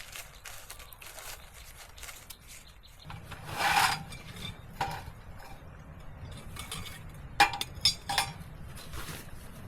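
Cookware and utensils being handled: a scrape, then a few sharp clinks, the loudest three close together near the end.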